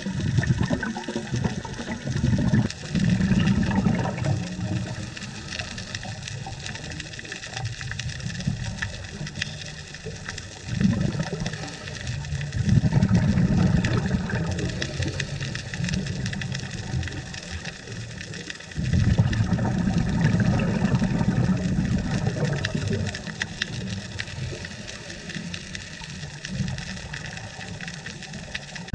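Underwater sound of a scuba diver's exhaled bubbles from the regulator, a low rumbling that swells in long bursts every several seconds, over a steady fine crackling.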